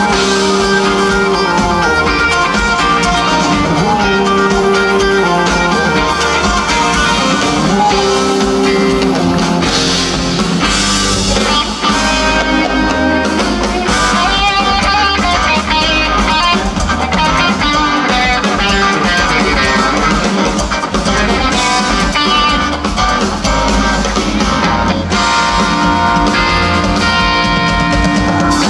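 Live rock band playing an instrumental jam: electric guitar lines over drum kit, bass and keyboards, loud and continuous.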